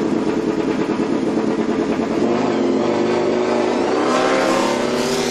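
MotoGP racing motorcycle engine running at high revs, with the pitch climbing from about four seconds in as it accelerates.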